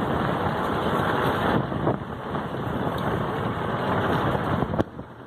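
Vehicle travelling over a rough dirt road, engine and road noise mixed with wind buffeting the microphone. The noise drops off sharply near the end.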